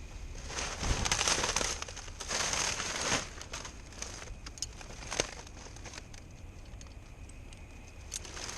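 Dry palm fronds rustling and crackling in a couple of bursts over the first three seconds, with a single sharp snap about five seconds in.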